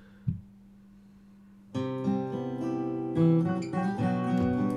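A short click, then, about two seconds in, a recorded acoustic guitar starts strumming and picking chords: the song intro's guitar part, played on an Epiphone Hummingbird acoustic guitar.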